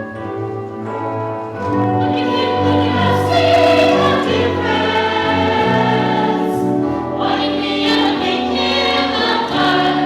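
Stage musical ensemble singing together in chorus with instrumental accompaniment. The accompaniment leads at first, and the full chorus comes in louder about two seconds in.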